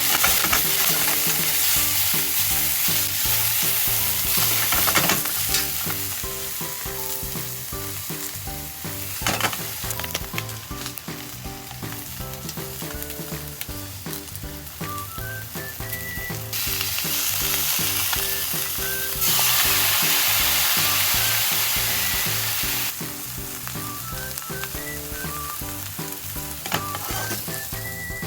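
Green peppers sizzling as they fry in a pan and are stirred, with a few sharp knocks of the utensil against the pan. The sizzle grows louder for several seconds past the middle.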